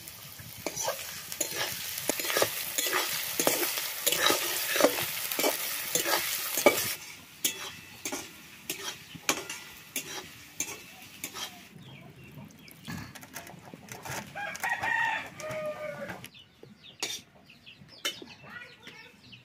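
Onions with ginger and garlic frying in oil in a metal wok, sizzling loudly for the first several seconds and then quieter. A metal spatula scrapes and clicks against the wok as the mix is stirred. A rooster crows about two-thirds of the way through.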